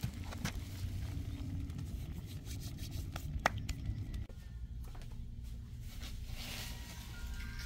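Wood fire crackling under a comal, with scattered sharp pops over a steady low rumble. About four seconds in the pops stop, and near the end ringing chime tones begin.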